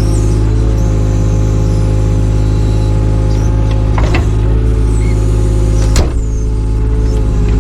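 Takeuchi TB216 mini excavator's diesel engine running steadily under work, with two sharp knocks, the second the loudest, and brief high squeaks as the machine works.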